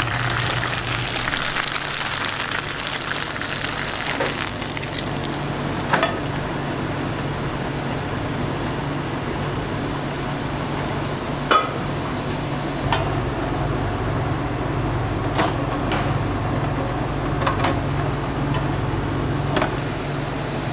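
Beaten egg sizzling in a nonstick frying pan as chopsticks twist it into a tornado omelet, the sizzle dying away after about four seconds. Then a steady low hum with scattered sharp clicks and clinks.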